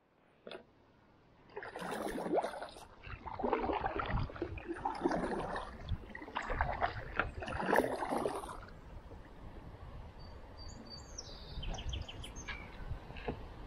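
Kayak paddle strokes splashing through the water, roughly one every second and a half, for several strokes. Then the paddling stops and a few faint high bird chirps come near the end.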